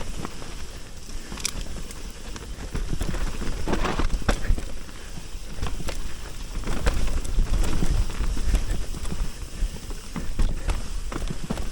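Mountain bike riding down a rough, muddy trail: a constant clatter of knocks and rattles as the tyres hit roots and rocks, over a low rumble of wind on the camera microphone.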